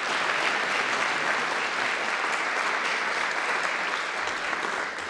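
A seated audience applauding steadily, many hands clapping together; the applause begins to die away near the end.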